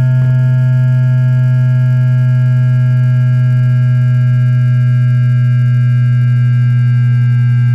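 Electrical PWM sound of a JR East E2-1000 series Shinkansen's 3-level IGBT VVVF inverter driving its traction motors, picked up by an inductor coil rather than a microphone: a steady chord of pure tones with a strong low hum, sliding slowly down in pitch as the train slows under regenerative braking in synchronous multi-pulse mode.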